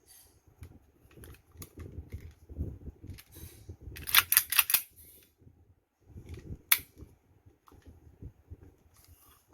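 Handling of a metal-bodied airsoft 1911 pistol: soft knocks and rubbing, a quick run of four or five sharp clicks about four seconds in, and a single sharp click a couple of seconds later.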